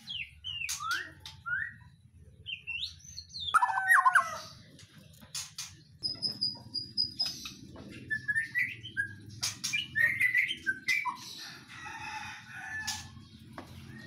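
Caged songbirds chirping and whistling in short, varied phrases and glides, with sharp flutters of wings against the cages. A steady low rumble sits underneath.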